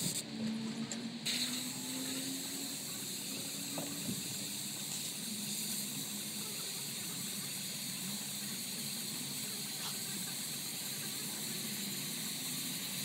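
Airless paint sprayer hissing steadily as it sprays a top coat onto shed siding through a spray gun on an extension pole. The spray cuts in and out briefly, then holds steady from about a second in.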